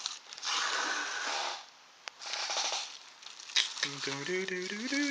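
Plastic packaging crinkling and rustling in short spells as a camcorder is unwrapped by hand. Near the end a tune of held, stepping notes begins.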